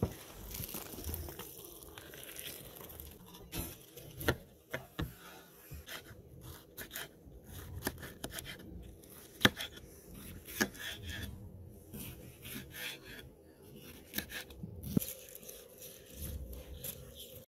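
Kitchen knife slicing food on a wooden cutting board: scattered sharp knocks of the blade on the wood, with rubbing and scraping between them.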